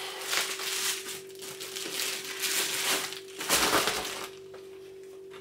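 Bubble wrap and a soft plastic sleeve crinkling and rustling as hands unwrap a camera body, in uneven bursts that stop about four seconds in.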